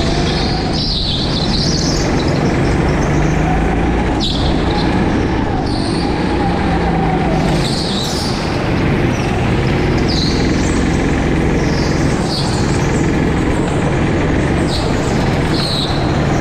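Go-kart engine running loudly under the driver, its pitch rising and falling with the throttle through the corners, with short high squeals every couple of seconds.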